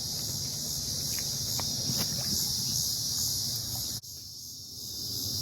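Cicadas droning steadily overhead, a high pulsing buzz over a low even rush of creek water, dipping briefly about four seconds in.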